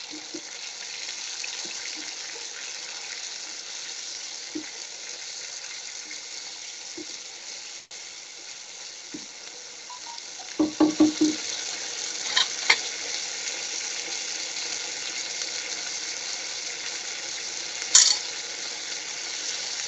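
Freshly added chopped tomatoes and capsicum sizzling in hot oil in a pan while being stirred with a wooden spatula, a steady frying hiss that grows a little stronger about halfway through. A few short knocks come around the middle, and a sharp clink near the end.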